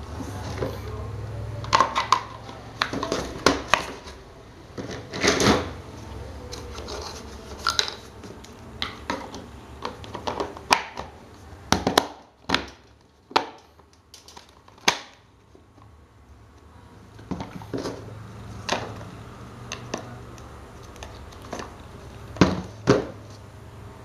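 A table fan's plastic motor housing covers being handled and fitted around its electric motor: irregular clicks, taps and knocks of plastic against plastic and metal.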